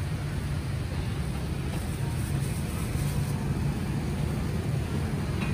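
Steady low rumble of street traffic, mostly motorbikes.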